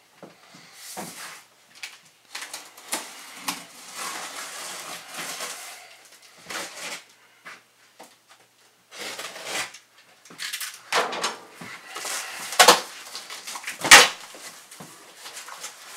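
A knife slitting the packing tape on a large cardboard box, then the cardboard flaps scraping and rustling as they are pulled open, with two sharp knocks near the end about a second apart.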